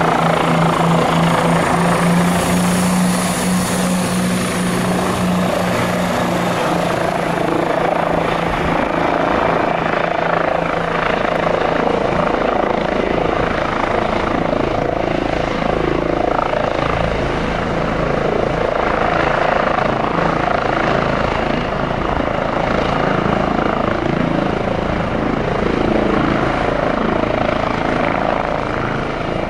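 Eurocopter EC135T2+ twin-turbine helicopter hovering low and moving over to set down, its rotor and engines running steadily. A high turbine whine stands out over the rotor sound for the first several seconds, and the sound eases off slightly near the end.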